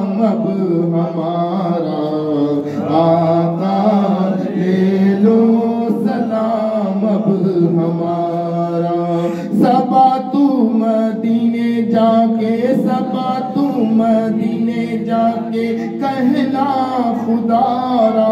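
A man singing a naat, a devotional chant, into a microphone in long held phrases that bend in pitch.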